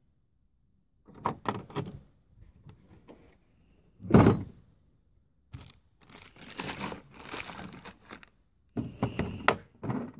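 Knocks, clicks and rustling handling noise of hand work on truck parts, with one loud thump about four seconds in.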